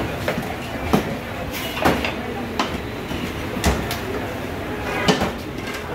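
Kitchen clatter at a paratha counter: sharp knocks and slaps at uneven intervals of about a second from cooks working dough and utensils, over a steady din of voices and cooking noise.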